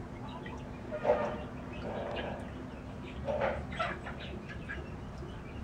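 A few short animal calls, the loudest about a second in and others over the next three seconds, over a steady low background hum.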